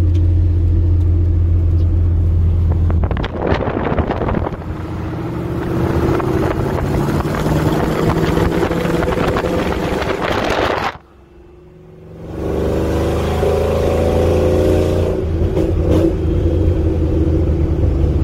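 The LS V8 in a 1992 Chevy pickup, driving and accelerating. A steady drone at first, then the engine note climbs with wind and tyre noise mixed in as the microphone is held out by the front wheel. The sound drops away suddenly for about a second, near eleven seconds in, before the engine climbs again.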